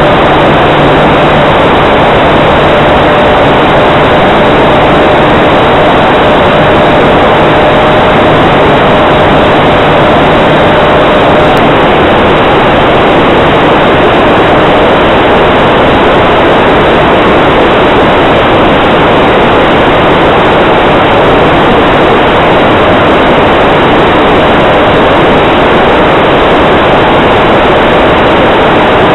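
Onboard audio from a model P-47D Thunderbolt's cockpit camera in flight: a loud, steady rush of propeller wash and wind over the microphone. A steady whine from the electric motor and propeller runs through the first twelve seconds or so, then fades into the rush.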